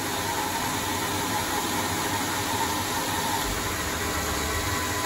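Proto-Trak L2 CNC lathe running under program on a roughing pass: a steady whir of the spinning spindle and chuck, with a faint steady tone.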